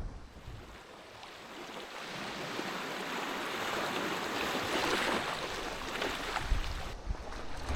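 Sea waves washing onto the shore: the surf swells to a peak about halfway through and then ebbs back.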